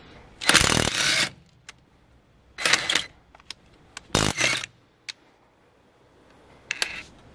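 Cordless impact wrenches hammering on a car's wheel nuts in four short bursts. The first three come from a Parkside PASSK 20 Li A1 and the last, near the end, from a DeWalt DCF894.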